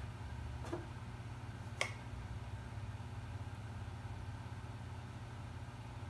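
Amana microwave oven running with a steady low hum while it heats a wet, freshly thrown clay bowl. Two faint clicks in the first two seconds.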